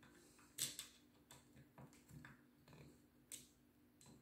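About half a dozen faint, separate clicks and ticks of a screwdriver and small metal parts as the screws of a camera mount clamped to a rifle scope are tightened, the loudest a little over half a second in.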